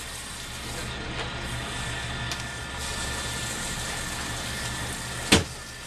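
Steady low hum of an idling engine, with one sharp knock near the end.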